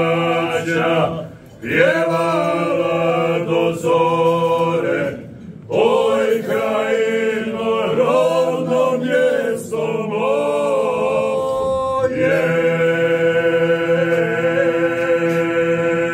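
A small group of men singing a cappella in harmony, a steady low drone held under a bending melody line. The singing breaks off briefly twice, then ends on a long held chord over the last few seconds.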